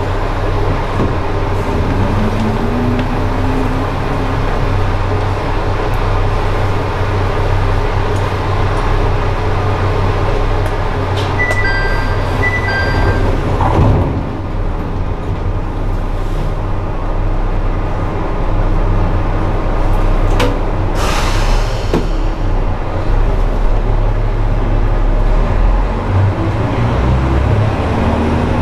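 Diesel railcar idling at a station stop with a steady low engine hum. About twelve seconds in, two short two-tone beeps sound and the doors slide shut with a thud, and around twenty-one seconds in a short burst of air hiss follows.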